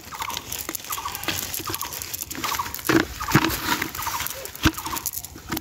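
Short pitched chirping calls from an animal, repeated about twice a second, with a few sharp knocks in the middle from fish and net being handled.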